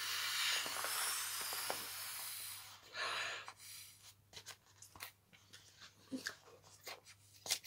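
Mouth-blowing into the valve of an inflatable vinyl pineapple drink holder: a long steady rush of breath for nearly three seconds, then a shorter puff. After about four seconds come small crinkles and clicks of the inflated vinyl being handled.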